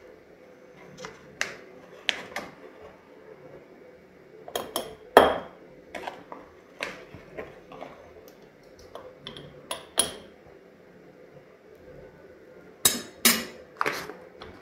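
Metal spoon clinking and tapping against glass while mushroom spawn is spooned from a paper bag into a jar of popcorn kernels: irregular sharp clinks, the loudest about five seconds in, with a quick run of clinks near the end.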